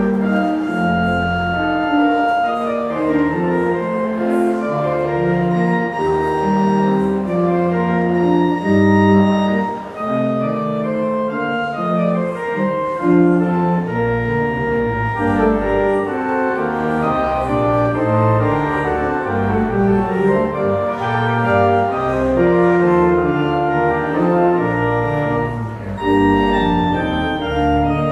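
Church organ played with both hands on its manuals: a continuous piece of sustained chords, notes changing every half second or so over low bass notes.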